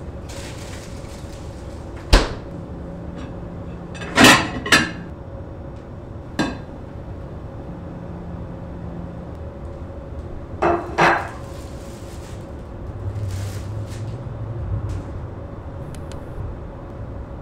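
Kitchen handling sounds: a sharp knock, then several clattering knocks and clinks of a plate and dishes against a stainless-steel sink, the last pair ringing briefly, over a steady low hum.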